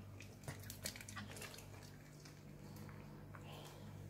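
A small dog eating a piece of fish from a hand: faint smacking and chewing clicks, mostly in the first second and a half, over a low steady hum.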